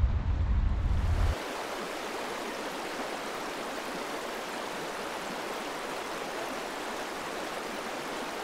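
River water rushing and rippling over the shallows right at the microphone, a steady even rush. A low rumble sits under it for the first second or so and then stops abruptly.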